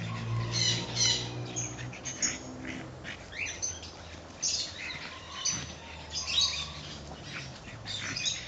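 Birds chirping and squeaking in short, high-pitched calls scattered throughout, over a low steady hum that fades after about three seconds.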